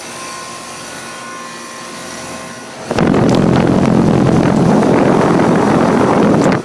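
Guardian air conditioner running with a steady hum. About three seconds in, a much louder rushing, rumbling noise begins suddenly, and it cuts off abruptly about three and a half seconds later.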